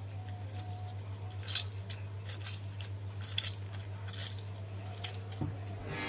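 A lemon squeezed by hand over a glass bowl of marinade: scattered soft squishes, drips and little clicks, over a steady low hum.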